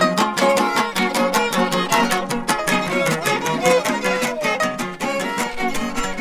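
Huapango huasteco played on violin and jarana: the violin carries a lively bowed melody over fast, even strumming of the small jarana guitar, in an instrumental passage between sung verses.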